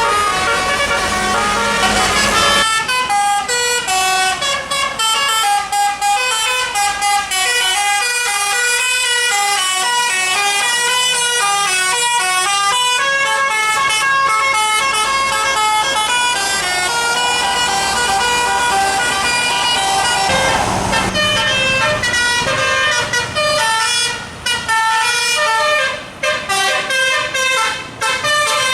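A bus's telolet horn, a multi-note musical air horn, playing a long run of quick stepped notes like a tune. A stretch of rushing noise comes before the tune starts and again about two-thirds of the way through.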